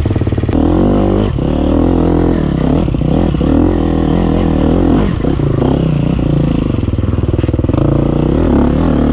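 Freshly rebuilt 2012 KTM XC-F 250 single-cylinder four-stroke dirt bike engine being ridden, its pitch rising and falling over and over as the throttle is opened and closed. It gets louder about half a second in.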